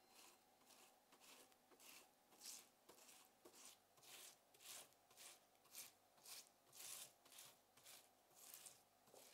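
Silicone pastry brush swiping oil across the cut faces of scored sweet potato halves on a baking tray, in faint, soft strokes about two a second.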